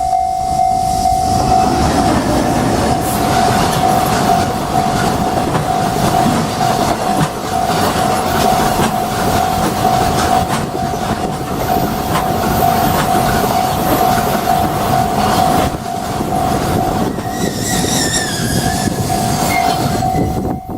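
A freight train hauled by an EH500 electric locomotive passing over a level crossing, its wagons rumbling and clattering on the rails, while the crossing's electronic warning alarm rings steadily throughout. A brief high tone sounds near the end.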